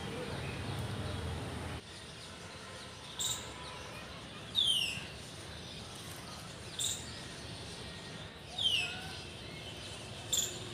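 A bird calling over and over: a short sharp note, then about a second and a half later a high whistle that slides down, the pair coming round about every three and a half seconds. A low rumble stops about two seconds in.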